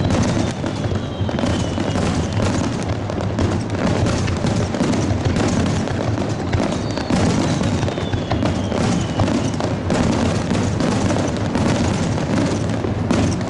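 Aerial fireworks bursting in rapid succession: a near-continuous run of overlapping booms and sharp pops, with a faint falling whistle twice.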